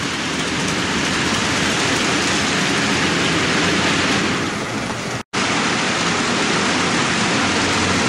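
Steady rolling noise of a long HO-scale model train of Athearn 40-foot ice-bunker reefer cars running past on the track, cut off for an instant about five seconds in.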